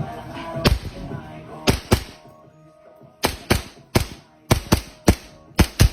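WE Hi-Capa gas blowback airsoft pistol firing about eleven sharp shots at an uneven pace, several in quick pairs, each with the slide cycling.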